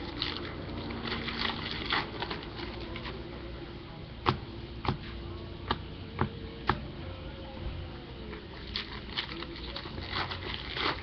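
Baseball trading cards handled and sorted by hand: card stock rustling and flicking, with about five sharp clicks in the middle as cards snap against each other or the table.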